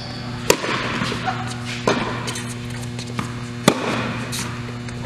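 Tennis ball struck by rackets in a rally on an indoor hard court: three sharp hits about a second and a half to two seconds apart, with fainter ball bounces between them. A steady electrical hum runs underneath.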